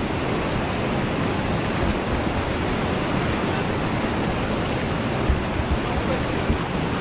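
Whitewater river rapids rushing steadily, heard close from a kayak on the water. A few short low thumps come in the second half.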